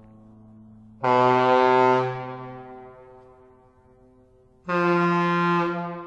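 Kockums Tyfon ship air horns sounding two separate blasts. The first starts about a second in on a low note, and the second, on a higher note, starts near the end. Each blast lasts about a second and leaves a long fading echo.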